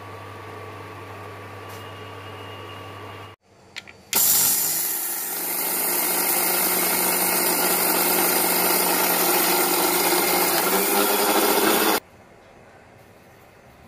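Electric mixer grinder running for about eight seconds, a loud steady whir that starts abruptly about four seconds in and cuts off suddenly near the end. Before it, a steady low hum while a pot of tea boils on an induction cooktop.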